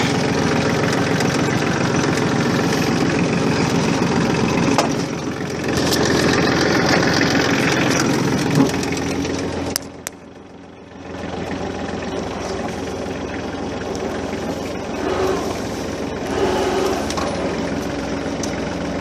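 Massey Ferguson 1433 compact tractor's diesel engine labouring under heavy load while trying to drag a log too big for it. The engine drops off sharply for about a second, ten seconds in, then runs on at a lower level.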